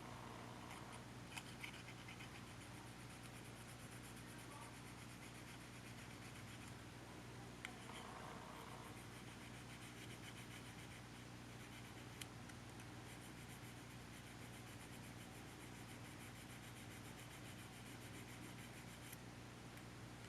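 Near silence: a steady low hum and hiss, with a few faint clicks and light scratching from small parts and tools being handled during the disassembly of a compact camcorder.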